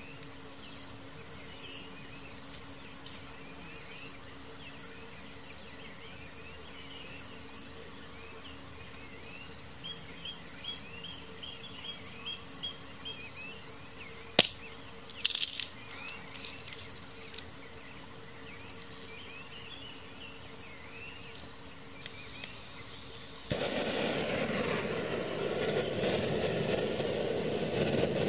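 Soft background chirping, with a few sharp knocks and clicks about halfway through. Near the end, after a couple of clicks, a portable gas canister stove lights and burns with a sudden steady hiss.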